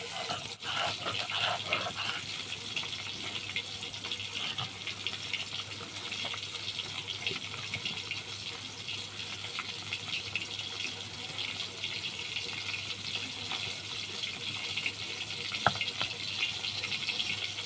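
Rui fish pieces frying in hot oil: a steady, even sizzle with fine crackling.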